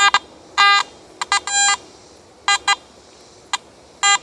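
Metal detector target tones: a string of short electronic beeps and two longer held tones, coming irregularly as the search coil is swept back and forth over a buried metal object. The object reads in the high 60s to low 70s.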